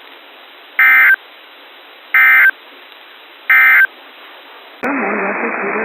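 Three short identical bursts of Emergency Alert System SAME data tones, a buzzy two-pitch warble about 1.4 s apart: the end-of-message code that closes an EAS warning broadcast. Near the end it cuts abruptly to a steady hiss of radio static.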